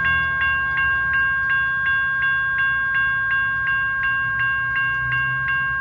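Railroad grade-crossing bell ringing steadily at about three strokes a second as the crossing warning activates for an approaching train.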